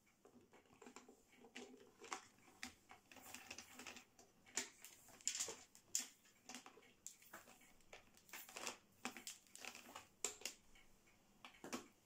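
Power cable being unwound from around a plastic tub vacuum cleaner: faint rustling with an irregular scatter of light clicks and taps as the flex slides over and knocks against the housing.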